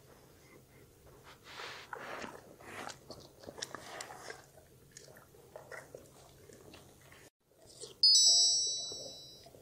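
A dog chewing and crunching pieces of food, a run of short crunchy bites. About eight seconds in, a bright, high chime sounds suddenly and rings out as it fades.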